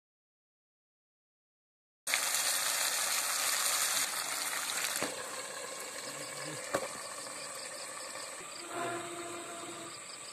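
About two seconds of dead silence, then a steady rushing hiss. It is loudest for the first three seconds or so, then eases to a softer, even hiss with a few faint clicks.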